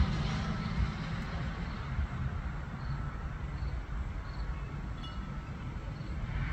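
Distant jet airliner at cruising altitude, a steady low rumble. From about halfway through, faint short high chirps repeat roughly every two-thirds of a second.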